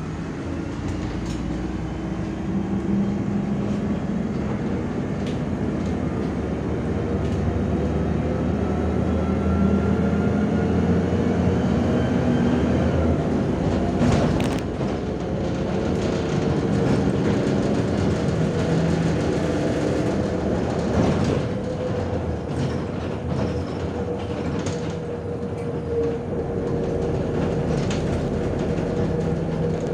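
Inside a MAZ-105 articulated city bus under way: the engine and drivetrain run with a whine that rises in pitch over the first dozen seconds as the bus accelerates, over steady road rumble and body rattle. Louder clunks and rattles come about fourteen and twenty-one seconds in.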